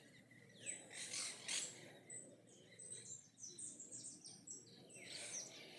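Bird calling: a quick run of short, high notes, each falling in pitch, through the middle, over a faint background hiss.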